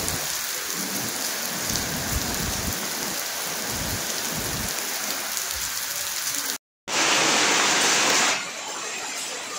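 Heavy rain pouring onto wet paving and puddles, a steady hiss. After a brief dropout about two-thirds of the way in, a louder rush of rain lasts about a second and a half, then a softer, steady patter.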